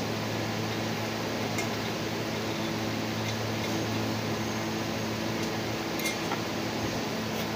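Steady low hum of a running electric fan or similar motor, with a few faint metallic clicks as the metal parts and gaskets of an EGR valve assembly are turned over in the hands.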